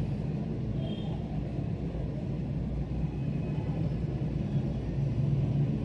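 Steady low background rumble with a continuous hum, unchanging throughout.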